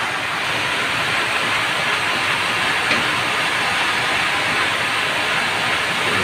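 Sawmill log saw running with a loud, steady, even noise, splitting a Merbau hardwood log.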